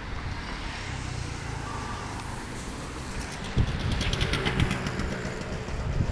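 City street traffic: cars and a motor scooter running along a wet road, a steady low rumble. About halfway through there is a louder passage with a fast rattling tick.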